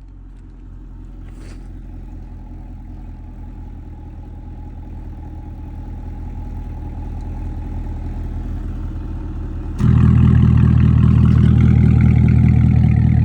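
Cadillac CT5-V Blackwing's supercharged 6.2 L LT4 V8 idling through a Corsa Extreme valved cat-back exhaust, growing steadily louder. About ten seconds in it suddenly jumps much louder and stays there: really loud.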